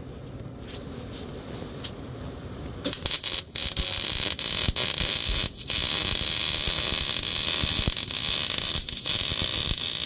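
Wire-feed MIG welder arc crackling steadily as it welds a steel-pipe nerf bar. It strikes about three seconds in, after a quieter hiss, and breaks off briefly a few times. The tubing is coated with stop-leak oil, which the welder says is not good for welding.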